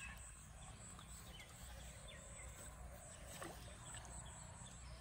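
Faint open-air ambience: a steady low rumble under a high, evenly pulsing buzz, with a few faint short chirps and one falling call about three and a half seconds in.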